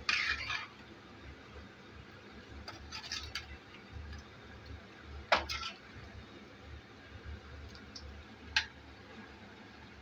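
Metal spoon stirring chicken in a cooking pot: a scrape and clatter at the start, light clinks, then two sharp knocks against the pot's rim, over a low steady hum.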